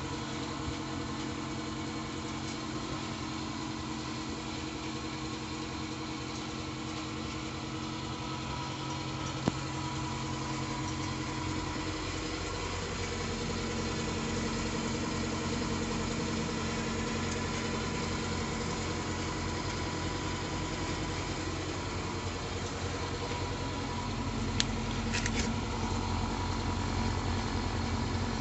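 Homemade pellet boiler running: a steady machine hum of several held tones over a low rumble, its mix of tones changing about halfway through, with a few faint clicks.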